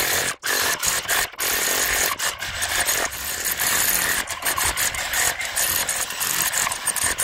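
Corded electric demolition hammer chiselling up a concrete well surround, hammering steadily with two short breaks in the first second and a half.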